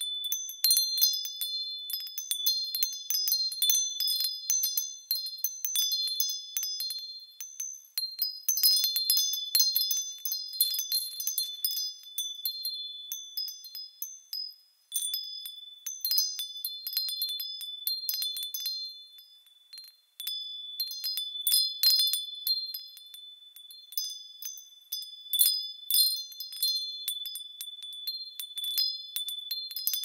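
Wind chimes tinkling: several high, clear tones struck again and again, ringing on and overlapping. The chiming dies away almost to nothing twice, about halfway through and again about two-thirds of the way, then starts up again.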